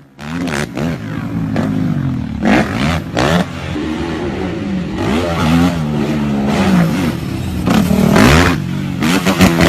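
Off-road quad (ATV) engine noise, revving up and falling back over and over as the throttle is worked, with short bursts of clattering noise.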